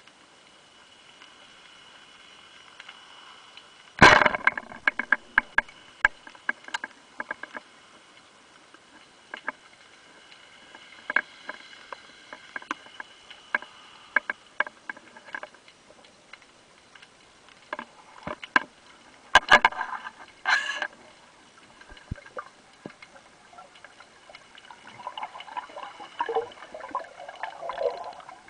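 Underwater: a loud sharp snap about four seconds in as a speargun fires, followed by scattered clicks and knocks from the spear shaft and the speared bass struggling on it, with another cluster of sharp clicks later and a rustling, bubbling patch near the end as the fish is handled.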